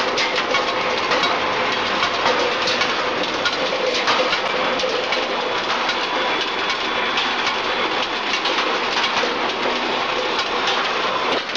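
Steel ball skew rolling mill running on a hot rolling line, a steady dense clatter and rattle of metal as red-hot bar is rolled into 40 mm steel balls.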